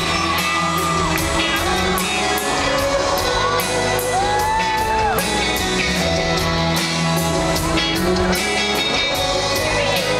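Live pop-rock band playing, with a steady drum beat, bass, and singing, while the crowd whoops and shouts over the music.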